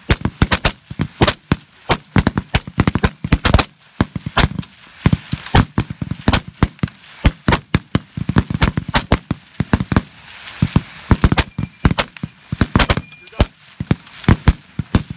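Rapid fire from a line of .30-06 M1 Garand rifles, shots overlapping at irregular intervals, several a second.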